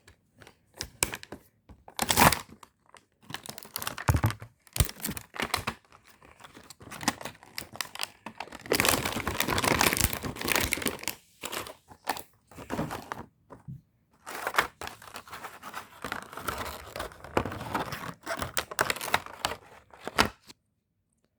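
Toy packaging being torn open and crinkled by hand, in irregular rustling and crackling handling noises with a longer run of tearing midway. The sounds stop shortly before the end.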